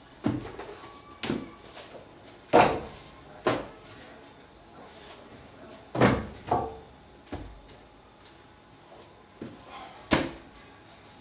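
Household knocks and bangs of cupboard doors and objects being handled: about eight sharp, separate bangs at irregular intervals, the loudest about two and a half seconds in.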